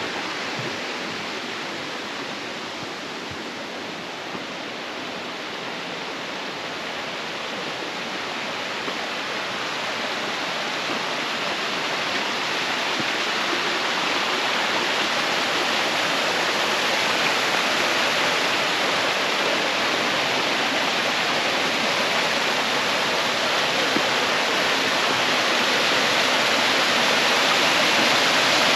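Steady rush of falling water from a waterfall, growing gradually louder.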